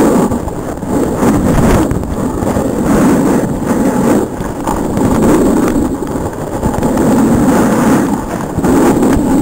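Wind buffeting a helmet-mounted camera's microphone while riding fast down a groomed snow run, mixed with the scrape of edges on the snow. The rush swells and fades every second or two.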